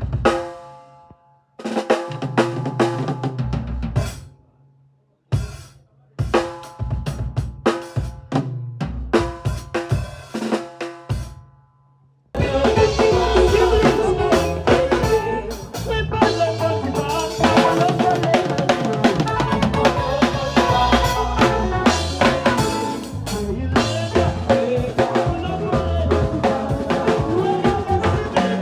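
A drum kit played in short sound-check passages of snare, kick and tom hits, stopping and starting with silent gaps between them. About twelve seconds in, it goes over into continuous full music, with pitched instruments sounding along with the drums.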